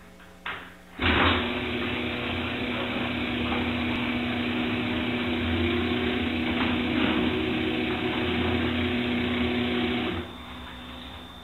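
An electric motor-driven machine switching on about a second in and running steadily with a hum, then dropping away near the end.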